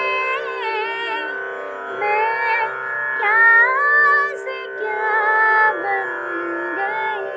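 Music: a slow melody of sliding, ornamented notes in short phrases over a steady drone.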